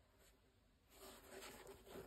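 Faint rustling and scratching of cotton-gloved hands handling a Puma MB.01 basketball shoe's laces and textile upper, starting about a second in after near silence.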